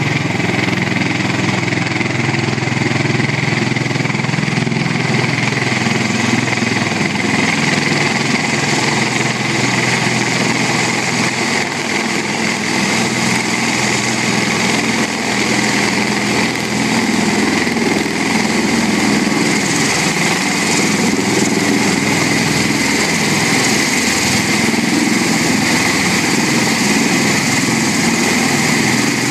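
MV-22 Osprey tiltrotor's twin turboshaft engines and proprotors running: a loud, even mechanical noise with a steady high whine on top, holding level throughout.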